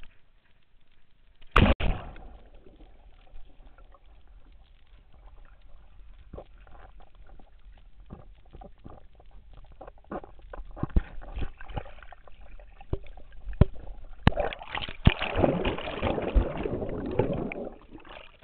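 A dog splashing into a swimming pool about a second and a half in, then muffled underwater sounds of water and bubbles with scattered clicks as she swims down to the pool floor. About fourteen seconds in comes a louder stretch of churning water that lasts about three seconds.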